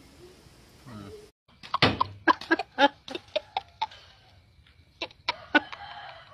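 A young boy laughing in short, choppy bursts, starting about a second and a half in after an abrupt cut and dying away near the end.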